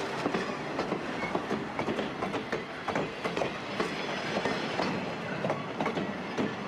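Passenger railroad cars rolling past, their steel wheels clacking over the rails in a steady run of sharp, uneven clicks over a continuous rumble.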